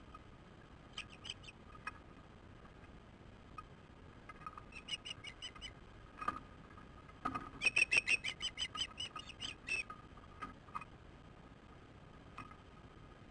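Ospreys calling on the nest: bouts of short, high-pitched chirps, with a rapid run of about a dozen chirps midway through that is the loudest part.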